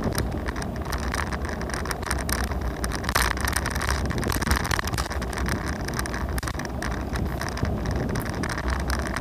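Scooter without suspension rolling along a road, its wheels' rumble broken by frequent small rattles and knocks from the bumps. Wind buffets the microphone.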